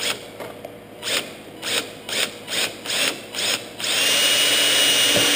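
Cordless drill boring into a plywood firewall: a string of short trigger bursts about half a second apart, then a steady run of about two seconds near the end with a high whine.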